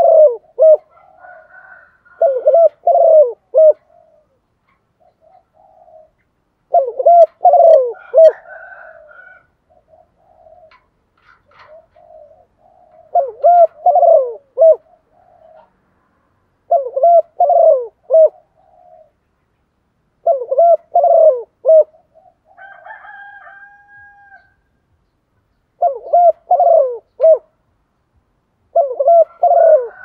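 Spotted dove cooing loudly in close-up, a multi-note cooing phrase repeated about every three to four seconds, some eight times in all. Fainter calls fill the gaps between phrases.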